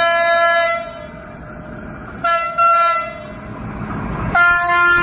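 Horn of an Alsthom diesel locomotive, No. 4201, running light as it approaches: three blasts, one ending under a second in, a short one around two and a half seconds in, and another starting near the end, with the engine rumbling between them.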